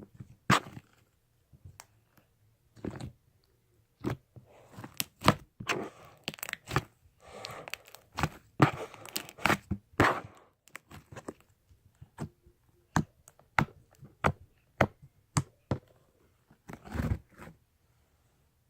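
Slime being squeezed, stretched and poked by hand, giving a string of irregular sharp clicks, pops and crackles with short crunchy stretches.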